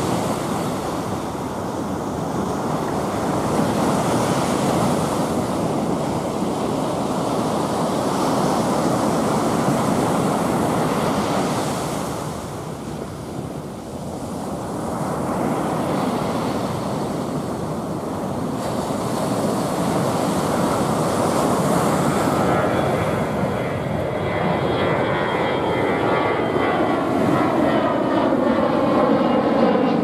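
Ocean surf breaking steadily on the beach, swelling and easing. From about two-thirds of the way in, the engine noise of a twin-jet airliner climbing out after takeoff grows over it with a sweeping whine.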